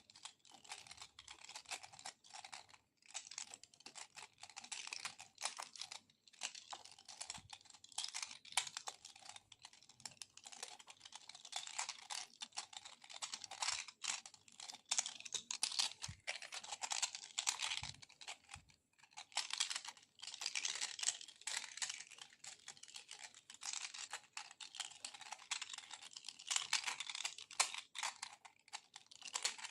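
Close-miked ASMR handling sounds: a dense, uneven run of small crackling clicks without a pause.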